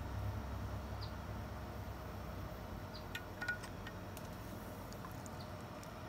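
Faint outdoor ambience, with a low rumble that fades away over the first half and a few faint high chirps. About three seconds in, a quick cluster of light metallic clicks and a short ring as steel tongs handle the freshly oil-quenched knife blade.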